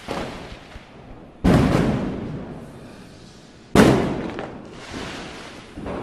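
Firecrackers going off: four sharp bangs about two seconds apart, the middle two loudest. Each is followed by a long echo that dies away over a second or more.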